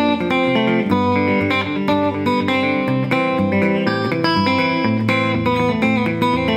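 Gretsch hollow-body electric guitar fingerpicked Travis style: a moving thumb bass line under plucked melody notes, played as a steady run of notes.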